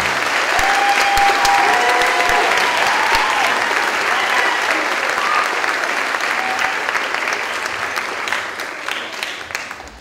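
Theatre audience applauding at the end of a song, with a few voices cheering in the first few seconds; the applause fades away near the end.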